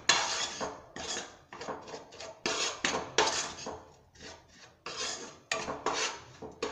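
Steel spoon scraping and stirring a dry, crumbly spice stuffing around a non-stick pan, in repeated rasping strokes about two a second.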